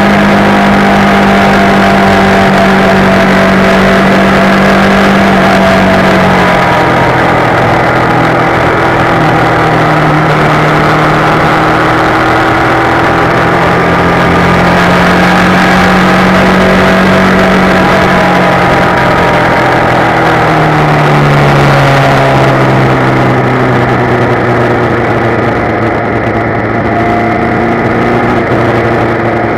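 Motorcycle engine heard close up from a camera mounted on the bike while riding at road speed, its note falling about six seconds in, rising again, and falling once more a little after twenty seconds, over a steady rushing noise.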